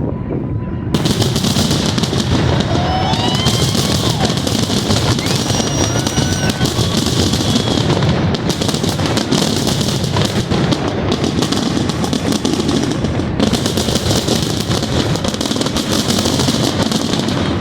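Fireworks going off in a dense, continuous barrage of bangs and crackling that starts about a second in, with a few high whistles gliding up and down over it.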